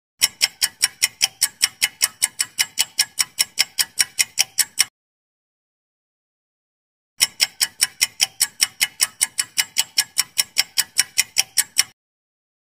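Clock-ticking countdown timer sound effect: rapid, even ticks about five a second for about five seconds, a silent gap of about two seconds, then a second run of ticks that stops shortly before the end.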